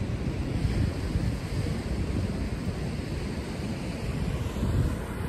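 Wind buffeting the phone's microphone over the steady wash of ocean surf breaking below the pier.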